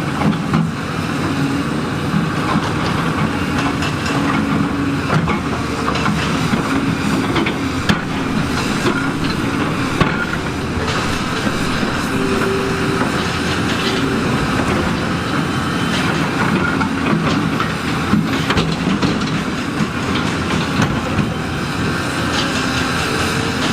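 Heavy tracked construction machinery running under load: a steady engine drone with frequent scattered clanks and knocks.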